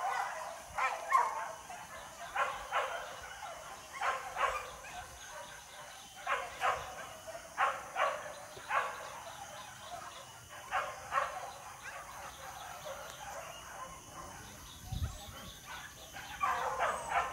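Hunting dogs on a wild pig hunt barking and yelping in short clusters, a few barks at a time every second or two, with a quieter spell in the middle and a busier run near the end.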